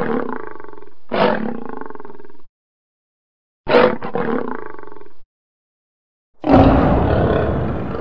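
Lion roar sound effects: a string of short roars cut apart by silent gaps, each starting and stopping abruptly. The last one, beginning near the end, is longer, rougher and deeper than the others and fades out gradually.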